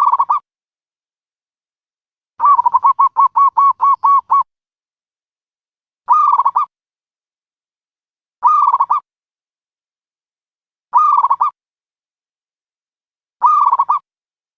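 A dove cooing: one rapid run of about ten short coos, then short coo phrases repeated about every two and a half seconds, with silence between them.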